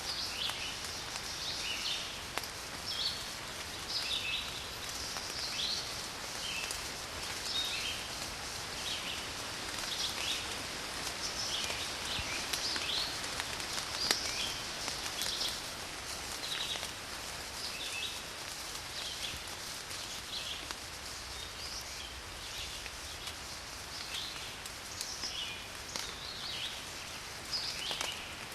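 Steady rain falling, with small birds chirping short calls one or two times a second throughout.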